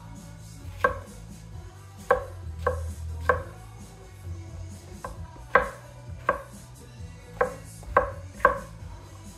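HSC3 Apex Ultra gyuto chef's knife slicing a yellow bell pepper on an end-grain wooden cutting board. About ten sharp knocks of the blade cutting through onto the board come in uneven clusters, not a steady rhythm.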